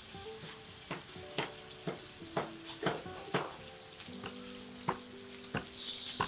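Wooden pestle mashing cooked cassava in a bowl: a run of dull knocks about twice a second, then a few more spaced out near the end.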